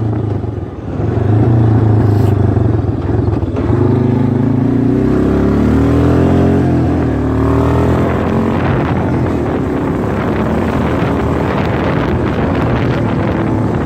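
A motor engine running steadily, its pitch shifting slightly a few seconds in, with wind noise on the microphone growing in the second half.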